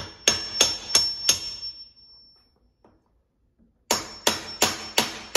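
Hammer tapping a dull chisel to drive the end cap off a 7.3 Powerstroke oil cooler held in a vise: two runs of five sharp metallic taps, about three a second, with a pause of about two seconds between. Each run leaves a thin high ring hanging after the taps.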